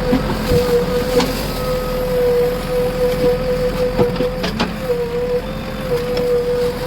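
JCB backhoe loader's diesel engine running steadily with a constant whine, with a few sharp knocks about a second in and again around four seconds in.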